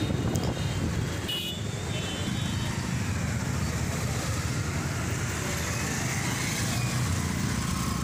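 Street traffic heard from the back of a moving motorbike: steady engine and road noise from the bike and the cars and motorbikes around it, with a brief high-pitched horn about one and a half seconds in.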